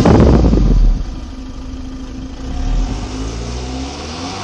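Exhaust of a VW Tiguan 2.0 TDI four-cylinder turbodiesel at the twin tailpipes: loud under held revs, then about a second in the revs drop and it settles to a quieter, steady run, with a brief swell near the middle.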